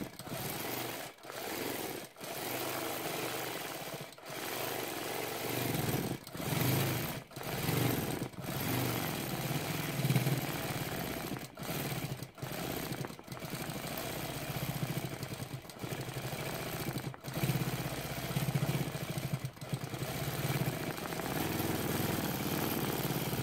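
Longarm quilting machine stitching: the needle's rapid, steady mechanical chatter, breaking off briefly many times as the stitching stops and starts.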